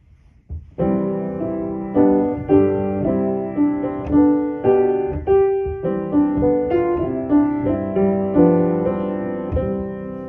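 Piano music: a slow melody over chords, starting about a second in, with the last chord ringing on and fading near the end.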